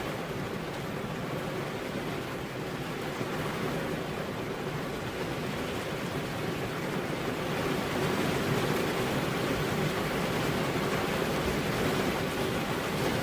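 Steady rain, a continuous even hiss that gets slightly louder about eight seconds in.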